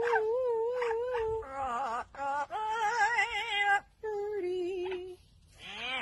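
Amazon parrot singing in a wobbling, warbling voice: long held notes that waver up and down in pitch, broken by short pauses, fading about five seconds in before a rising run of notes near the end.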